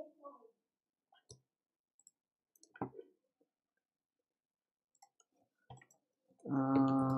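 A few sparse clicks from a computer keyboard and mouse. Near the end a man's voice starts a long, steady held note, the loudest sound here.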